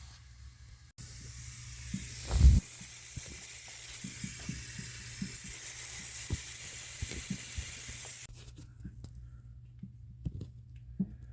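Steady hiss of water spraying from a pressurised pipe inside the wall, leaking where a screw has pierced it, with scattered knocks and one loud thump about two seconds in. The hiss stops abruptly about eight seconds in, leaving a few clicks.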